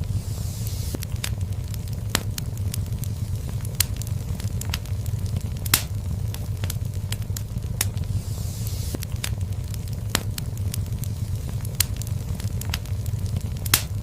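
Wood fire burning in a fireplace: a steady low rumble with irregular crackles and pops, a few of them sharper and louder, and two brief hisses.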